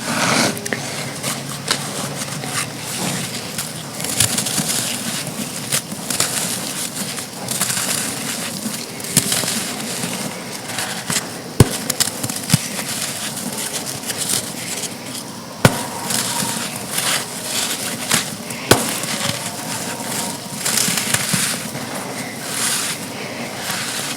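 Dry chunks of sand being crumbled and crushed, a continuous crisp crunching and crackling, with a few sharp cracks around the middle.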